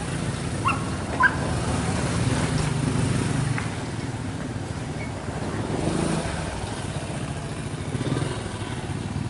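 A motorcycle engine running steadily, wavering a little in pitch, with two short, high yelps about a second in.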